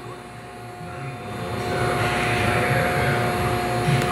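Multicam 1000 Series CNC router running, with a steady mechanical whine. The sound swells to a louder, hissier level about a second or two in and then holds steady.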